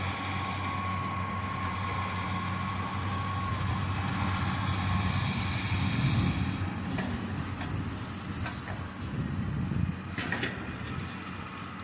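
Cat knuckleboom log loader's diesel engine and hydraulics running steadily under load, with a thin whine over the first few seconds that fades. From about seven seconds in, sharp cracks and snaps of wood come as the grapple works a tree stem at the delimber.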